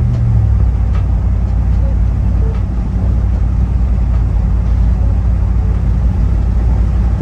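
Chevrolet Express van cruising, heard inside the cab: a loud, steady low drone of engine and tyre noise on the road surface.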